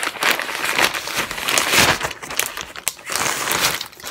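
Clear plastic zip-top bag crinkling and rustling as hands handle it at its top, a dense crackly sound throughout.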